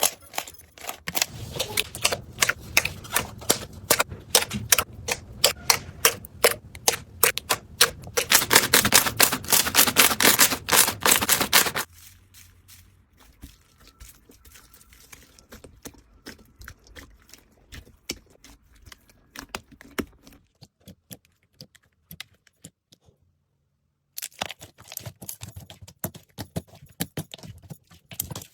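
Slime being squeezed and pressed by hand, making rapid crisp clicks and pops. The clicking thins out and goes quieter partway through, stops for a few seconds, then starts again.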